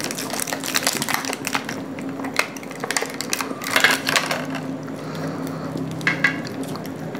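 Close-up eating sounds: soft cake being eaten, forks and spoons clicking on plates, and the crackle of a thin clear plastic pastry cup being handled, densest about halfway through. A steady low hum runs underneath.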